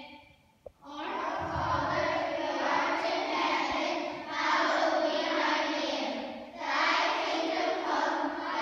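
A group of young children singing together in unison, starting about a second in after a short pause, in long phrases with brief breaks between them.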